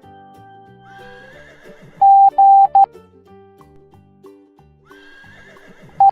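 Morse code beeps: a loud, steady tone keys out a letter about two seconds in, two long beeps and one short. Quieter cartoon music plays underneath, with a horse whinny about a second in and again near the five-second mark. A new run of short beeps starts at the very end.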